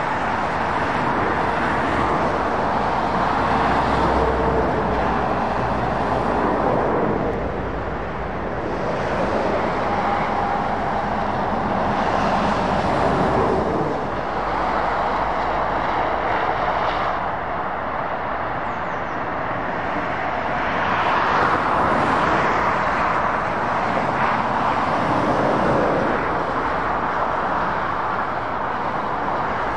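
Lorries and cars passing on a dual carriageway: a steady rush of road traffic that swells and fades several times as vehicles go by.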